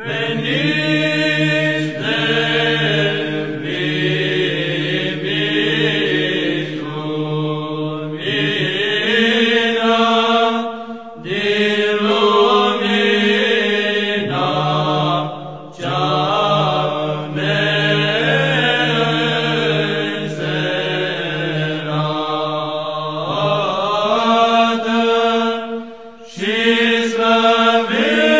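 Orthodox church chant: voices singing phrases over a steady, held low drone note, with short breaks between phrases.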